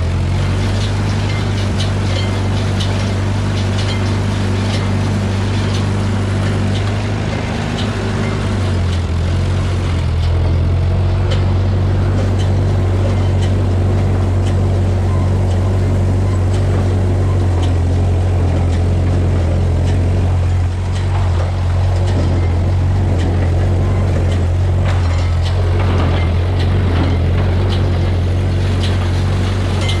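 Tractor engine running steadily under load, driving a Massey Ferguson small square baler with a mechanical clatter of knocks. The engine note shifts about ten seconds in.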